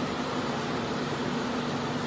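Card slitting and collating machine running, an even mechanical hum with a steady low tone underneath.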